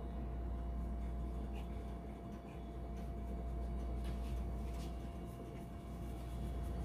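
Steady low hum with a faint steady tone, and a few faint light ticks of a knife blade touching the stone countertop as the edges of rolled puff pastry dough are trimmed.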